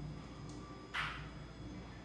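Faint background music, with one short, sharp hiss about a second in.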